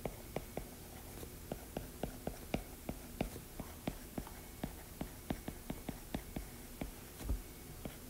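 Stylus tapping and clicking on a tablet's glass screen while handwriting: a run of light, irregular clicks, several a second.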